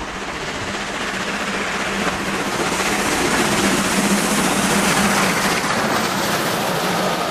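Steam locomotive hauling a passenger train passing close by, its running noise growing louder to a peak about four to five seconds in, then the coaches rolling past.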